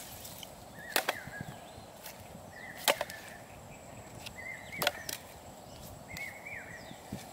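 Dry wood and bark pieces knocking together as they are laid on a small pile on the ground: sharp knocks, several in quick pairs. A bird repeats a short rising-and-falling whistle about every two seconds.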